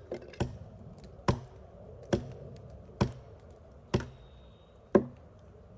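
Hammer blows driving a wedge under a heavy timber beam to lift it: six sharp strikes about a second apart, stopping near the end.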